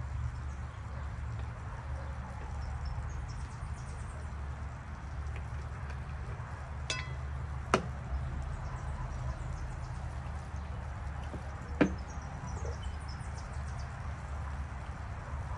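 Two sharp knocks about four seconds apart, with a fainter tap just before the first, over a steady low rumble.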